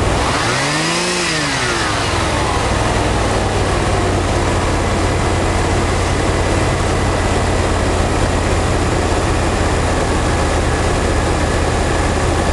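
1984 Ford LTD Crown Victoria's 5.0L V8 running: a quick rev up and back down in the first two seconds, then settling to a steady idle.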